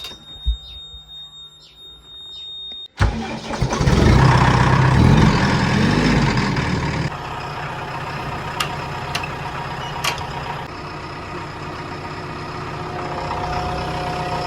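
A steady high beep, then a vehicle engine starts suddenly about three seconds in, revs unevenly for a few seconds, and settles into a steady idle from about seven seconds in.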